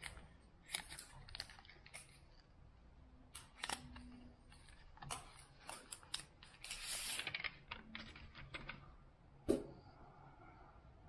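Paper packaging sleeve rustling and sliding off a TV remote control, with small clicks and taps of handling; a longer rustle about six and a half seconds in and a sharp tap near the end.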